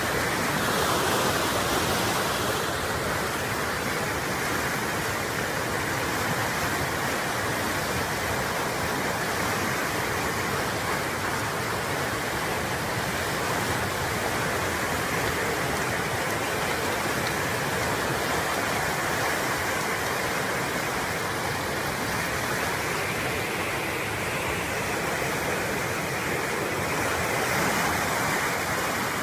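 Rushing floodwater: a steady, unbroken rush of fast-flowing water.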